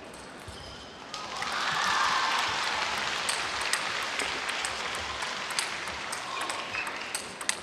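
Crowd applause in an arena, starting about a second in, swelling quickly and carrying on steadily, with sharp taps near the end.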